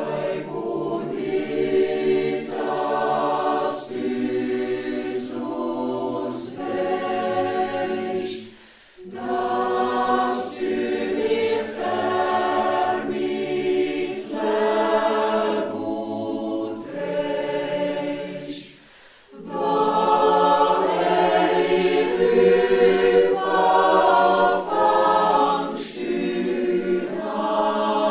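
A mixed church choir of men's and women's voices singing together in sustained chords, in phrases broken by two short pauses about nine and nineteen seconds in.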